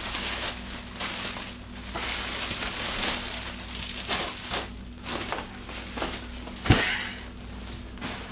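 Black plastic trash bag crinkling and rustling as it is gathered, tied off at the top and hoisted up, with one dull thump about two-thirds of the way through.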